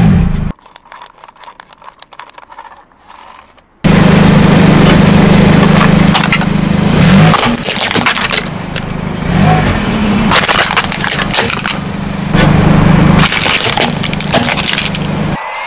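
Hard plastic cracking and snapping as a car tyre rolls over and crushes a plastic toy car, with many sharp cracks over a loud low drone. Before that, about four seconds of faint crackling.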